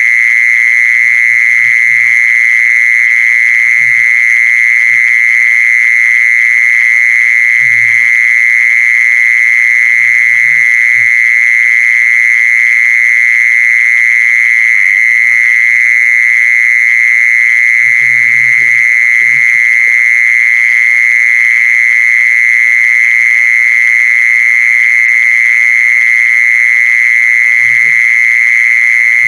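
Jee-son cicada (แมงจีซอน) singing in one steady, unbroken high buzz.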